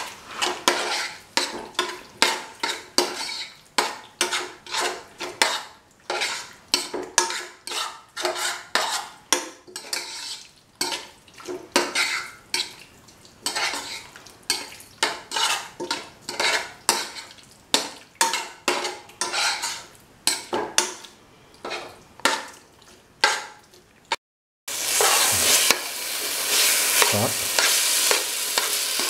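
A spoon stirring and scraping boneless chicken pieces through frying masala in a pan, in repeated strokes about twice a second. Near the end the strokes give way to a steady sizzle of frying.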